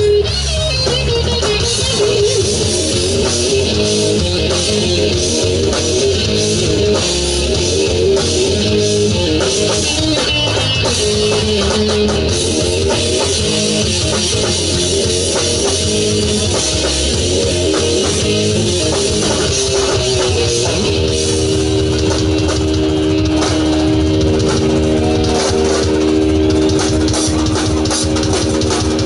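Live rock band playing an instrumental passage: a lead electric guitar line over drums and bass. About two-thirds of the way through, the guitar settles into long held notes.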